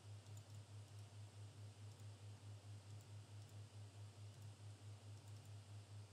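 Near silence: a faint low hum that pulses about five times a second, with a few faint clicks scattered through it.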